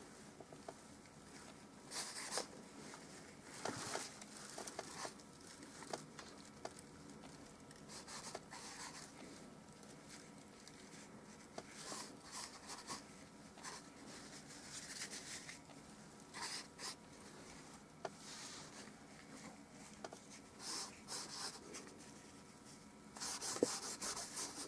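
Faint scratchy swipes of a wadded paper towel rubbed and dabbed over a wet oil-painted canvas, lifting paint out to make lights. The strokes come in irregular clusters, busiest near the end, with a sharp tap just before it.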